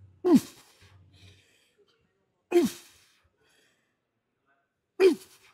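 A man's forceful voiced exhales, each a short grunt falling in pitch, three times about every two and a half seconds: effort grunts on each rep of a set of leg training.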